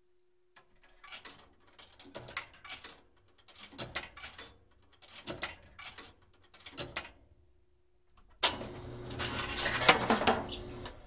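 Coins dropped into a 1960s Smokeshop electromechanical cigarette vending machine, each one clinking and rattling through the mechanical coin validator, about five in turn. Then comes a sharp click, and the vending motor runs with a hum, driving the vending drawer to push a pack out of the hopper.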